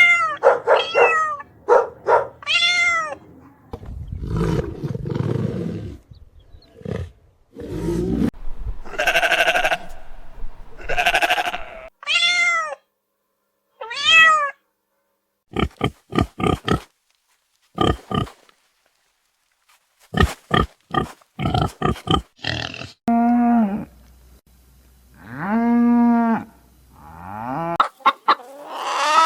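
A series of different farm animal calls, one animal after another with short gaps between them. Pitched, falling calls come first, then a low rough noise, runs of short sharp calls in the middle, and long pitched calls near the end.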